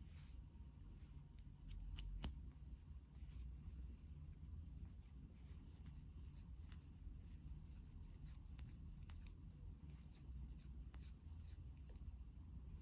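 Faint clicks and light rubbing of small objects being handled, with a few sharper clicks about two seconds in.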